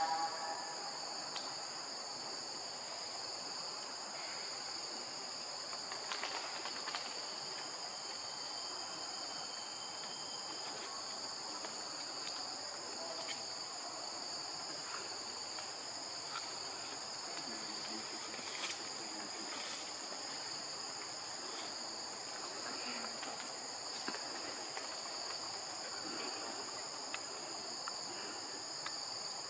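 Steady chorus of insects, a continuous high-pitched buzz at two pitches, with a few faint scattered clicks.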